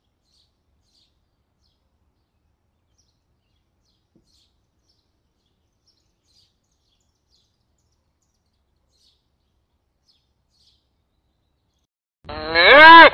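Faint, scattered high chirps of a European robin, then near the end a single loud cow moo whose pitch rises and then falls.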